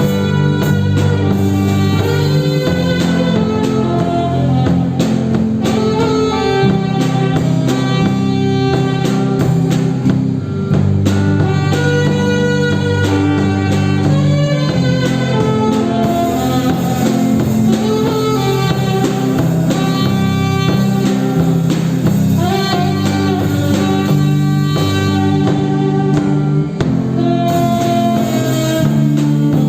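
A band playing an instrumental passage: a lead melody of long held notes over guitar and a sustained low accompaniment, with no singing.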